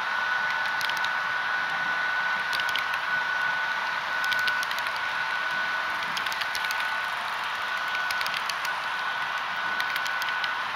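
HO scale model double-stack freight cars rolling past on model track: a steady hiss of the small metal wheels on the rails, with scattered light clicks and a thin, steady high whine underneath.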